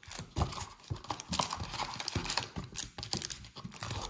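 Wrapped trading-card packs crinkling and tapping as they are taken out of a cardboard hobby box and stacked on a table: a run of irregular rustles and light clicks.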